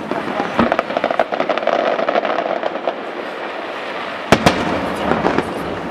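Aerial fireworks shells bursting overhead: a dense run of rapid crackling reports through the first half, then a cluster of loud bangs a little past four seconds in.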